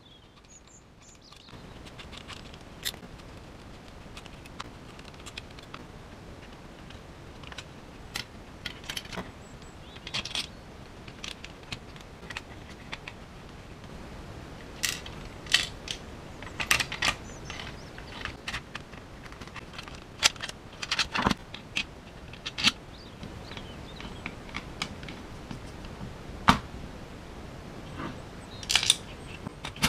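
Hand assembly of an RC car gearbox: a screwdriver turning small screws out of and into the metal gearbox plates and plastic chassis, with scattered light clicks and clatters of screws and parts being handled, in small bursts now and then.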